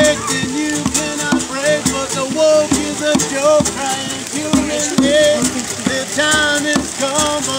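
Live acoustic music: a man singing over a strummed acoustic guitar, with a hand drum keeping a steady beat.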